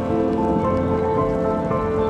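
Background music: slow, held notes that change pitch every half second or so, with no singing, over a steady low haze.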